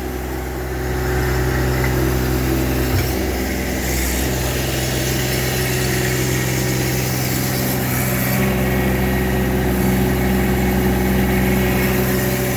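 Mini skid steer engine running steadily while driving a Paladin X1500 hydraulic auger driver that turns a Premier concrete mixing drum; it gets a little louder about a second in.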